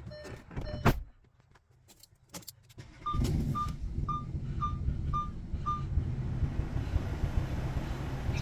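Audi Q7 warning chime repeating, a couple of clicks and a short quiet gap, then the engine starts about three seconds in and runs steadily. Six short, evenly spaced warning beeps sound as it starts.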